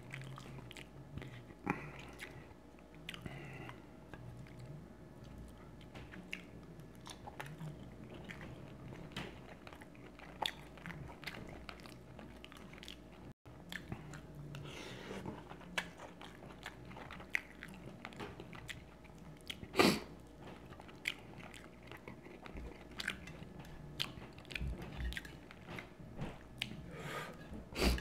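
A person chewing and biting food close to the microphone, with many small wet mouth clicks and smacks. There is one louder short noise about twenty seconds in.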